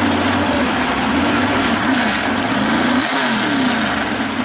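Duramax diesel engine of a mud-racing mega truck revving under load as the truck jumps and lands in the mud, its pitch wavering up and down and dipping about three seconds in.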